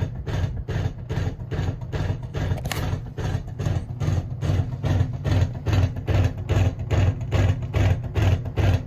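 Emerson friction-drive ceiling fan running fast with a rhythmic thudding, about four beats a second. The thuds come from its unbalanced, wobbling blades. A single sharp click sounds a little under three seconds in.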